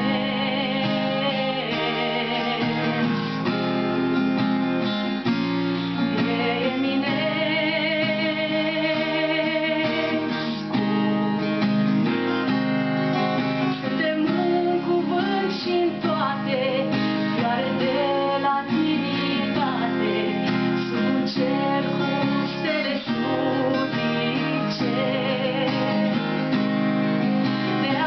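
Live song: a woman singing, accompanied by an acoustic guitar, with the sung notes wavering on the held tones.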